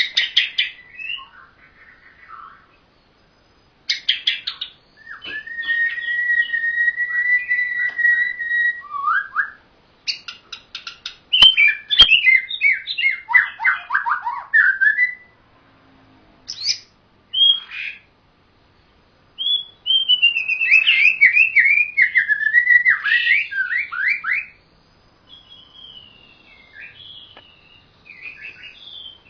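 Songbird singing in separate phrases: long, clear level whistles, then quick runs of falling, chattering notes, with short pauses between phrases. Two sharp clicks about halfway through.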